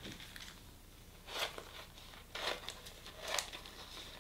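Scissors cutting through a few layers of glossy magazine paper, three cuts about a second apart.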